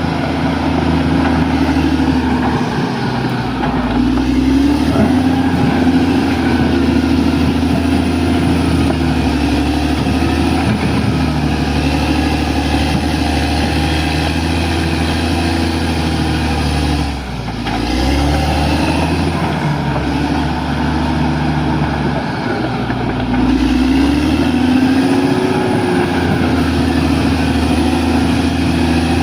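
Bulldozer's diesel engine running under load, its pitch rising and falling repeatedly as it works, with a brief dip about seventeen seconds in.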